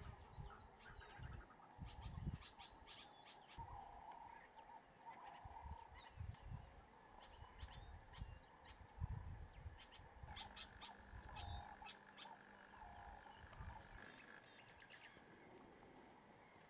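Faint wild animal calls in the bush: scattered short high bird chirps, with a few lower calls of the kind frogs make, mostly around the middle. Irregular low rumbles and knocks sit underneath.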